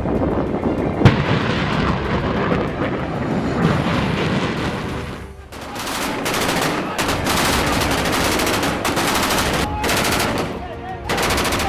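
Military live-fire: heavy, continuous blasting with a sharp report about a second in, then rapid automatic gunfire in long, fast bursts with short breaks between them.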